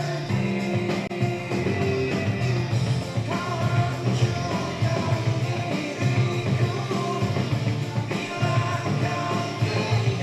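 Live rock band playing, with drums, bass and guitars and a sung melody.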